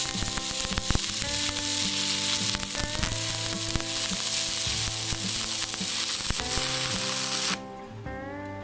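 Electric arc welding on thin steel square tube: a steady crackling sizzle from the arc, which cuts off suddenly about seven and a half seconds in when the arc is broken. Guitar music plays underneath.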